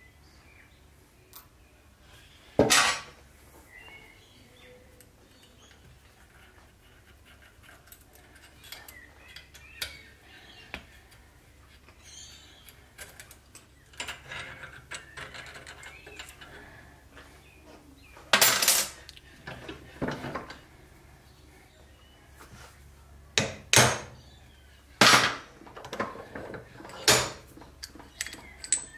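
Hammer blows on a small steel shaft and bearing cartridge held in a bench vise: sharp metallic knocks, one about three seconds in and a run of them in the last ten seconds, with light clinks of metal parts being handled between.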